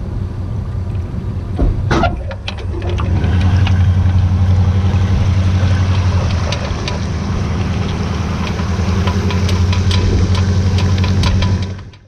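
A bass boat's outboard motor running steadily, with scattered knocks over it; it gets louder about three seconds in and then holds. The sound cuts off suddenly at the end.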